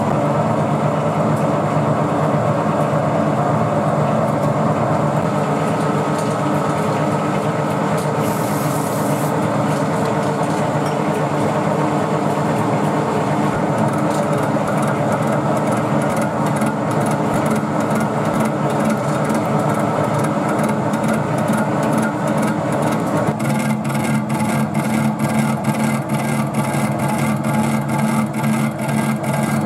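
Metal lathe running under load while a carbide insert takes a cut across a large spinning disc: a steady gear and motor hum with cutting noise, and a regular ticking of about three a second that becomes sharper near the end.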